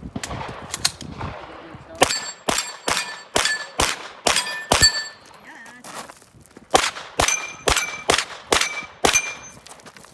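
Rapid 9mm shots at steel plate targets, each hit answered by the clang of a plate ringing at its own pitch. Two quick strings of about seven shots, roughly two or three a second, with a short pause between them.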